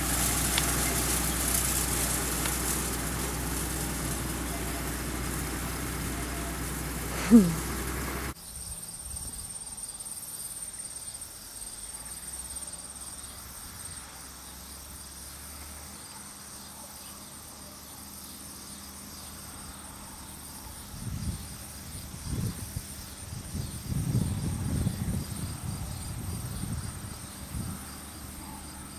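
A tractor engine runs steadily, with a brief loud sound falling in pitch about seven seconds in; then the sound cuts off suddenly to a quieter field where insects, likely crickets, keep up a steady high chirring, with irregular low rumbles near the end.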